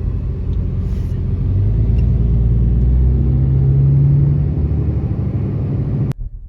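A motor vehicle's engine running with a low rumble, its pitch rising a little in the middle as it speeds up. The sound cuts off abruptly about six seconds in.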